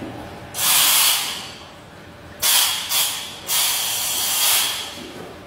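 Compressed air hissing from scuba gear in four bursts: one about half a second in, then three close together about halfway through, the last lasting about a second.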